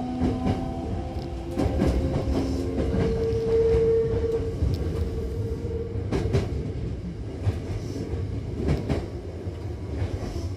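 Hankyu Takarazuka Line electric train running between stations, heard from inside the car: a steady rumble of wheels on track with a few sharp clacks. A humming tone from the train's drive sits over it for a couple of seconds in the middle.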